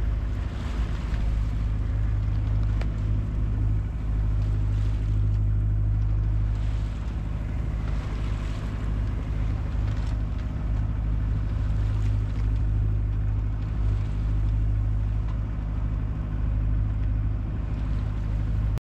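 A sailboat's auxiliary engine running steadily under way, a constant low drone with an even rush of noise over it.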